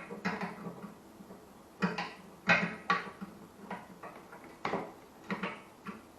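Metal motorcycle parts knocking and clinking against the frame as a tightly fitting part is worked out by hand: a run of irregular clunks, the loudest about two and a half seconds in.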